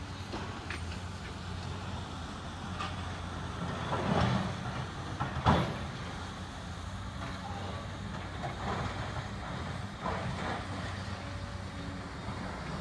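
Excavator at a building demolition: a steady engine drone with scattered knocks, a heavier crash about four seconds in and a sharp bang, the loudest sound, about five and a half seconds in.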